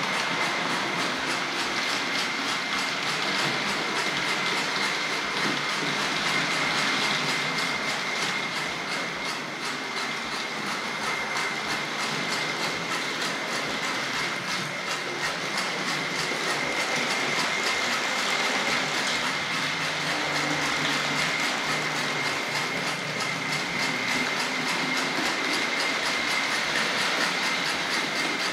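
Tri-ang Hornby model steam locomotive running steadily with a train of coaches. Its electric motor gives a constant whine over a fast, even, rhythmic chuffing hiss from the tender's chuff-chuff sound box, where a scraper driven by the tender wheels rubs a membrane, and the wheels clatter over the track.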